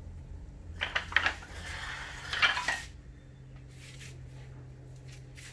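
Small plywood offcuts clattering as they are handled and dropped onto a pile on a concrete floor: a few sharp wooden knocks about a second in, then a longer rattling clatter that stops about three seconds in. A steady low hum runs underneath.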